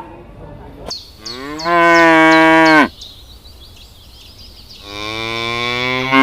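A cow mooing twice: two long moos, the second one lower in pitch, each dropping off at the end.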